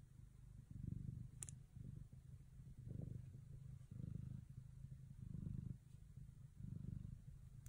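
Bengal mother cat purring close to the microphone. It is a low, steady purr that swells and fades with each breath, about once a second.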